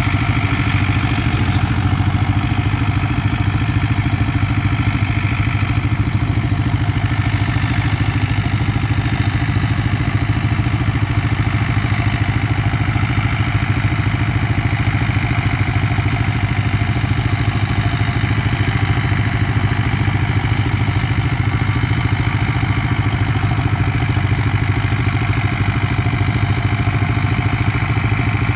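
Ford 5000 tractor's four-cylinder engine running steadily as the tractor drives along.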